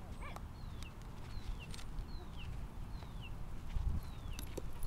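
A bird repeats a short, high call that slides downward, about once every 0.7 s, over wind noise on the microphone.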